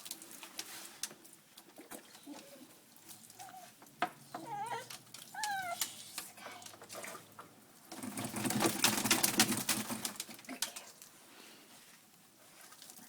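A nervous dog in a bath whimpering with a few short, high whines, among light clicks and rubbing from being handled. About eight seconds in there is a louder stretch of wet scrubbing noise lasting a couple of seconds.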